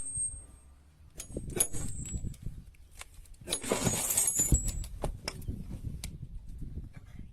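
A series of sharp metal-on-metal strikes, several followed by a brief high ring, with a noisy rush lasting about a second near the middle.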